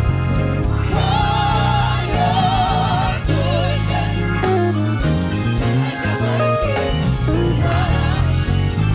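Gospel mass choir singing live with band accompaniment, the voices wavering with vibrato over a deep bass line and keyboard.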